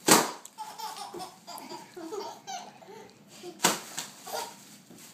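Plastic bubble packaging popping sharply under children's stomping feet: a loud pop right at the start and another about three and a half seconds in. Between the pops a baby laughs.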